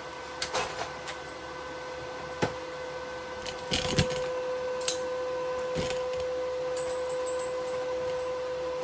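AC TIG welding arc on aluminium, a steady buzz, with a few sharp clicks and knocks scattered through it.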